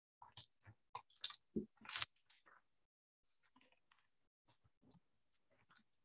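Cardboard cereal box being handled on a wooden tabletop, pressed, stood on edge and flipped over: a run of short scrapes, crinkles and taps, loudest in the first two seconds and fainter after.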